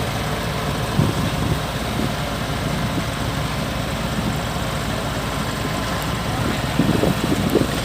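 Diesel engine of a Kubota DC-105X combine harvester running steadily with an even low throb. There are short louder bumps about a second in and again near the end.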